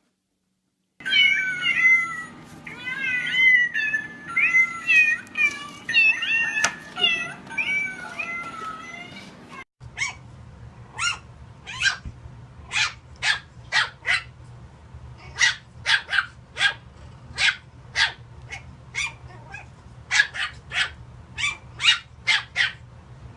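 Cat vocalising: a rapid run of short, high, quavering mews or chirps, then after a cut a long string of short, sharp cries, about one or two a second.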